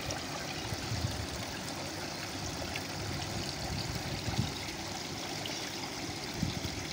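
Several garden water features running together: water trickling and splashing down tiered rock cascades and pouring from jugs into basins, a steady trickle.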